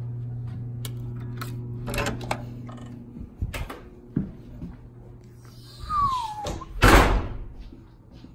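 Hotel room door with a keycard lock being opened: a run of clicks and clunks from the lock and lever handle, a short falling squeak, then a loud thump about seven seconds in. A steady hum sits under the first few seconds and fades.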